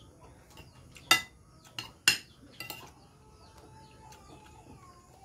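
Tableware clinking and knocking as a plate and bowl are handled during a meal: four sharp clinks, the two loudest about one and two seconds in.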